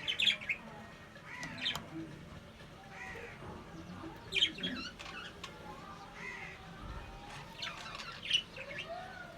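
Budgerigars chirping and warbling: soft arching chatter notes throughout, broken by sharp high chirps about four times.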